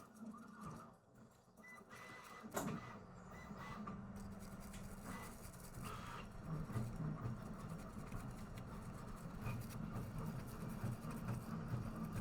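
A brush scrubbing flux residue off a graphics card's circuit board around a freshly soldered 12VHPWR power connector. A click comes about two and a half seconds in, and steady rubbing strokes follow.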